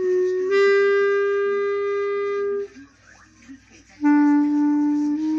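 Clarinet playing two long held notes. The first lasts about two and a half seconds and steps up slightly just after it starts. After a short pause, a lower note is held and steps up a little near the end.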